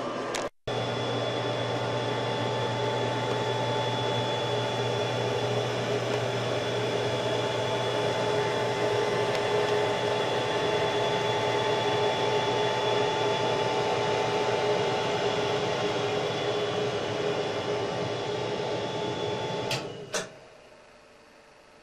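A steady motor hum with a constant whine, from a running appliance, that stops with a couple of clicks about twenty seconds in.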